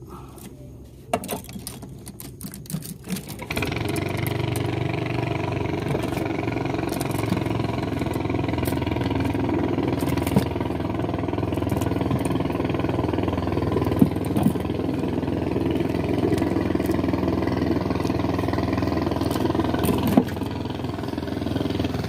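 Clicks and knocks of fishing rods being handled, then, about three seconds in, a small boat engine comes in and runs steadily, with a few sharp knocks over it.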